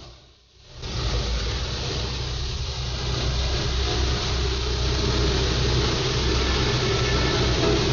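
Heavy vehicle's engine running steadily under a rushing noise, starting abruptly just under a second in and slowly growing louder.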